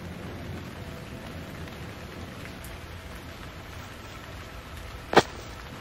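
Steady rain falling on a surface, with one sharp, loud crack about five seconds in.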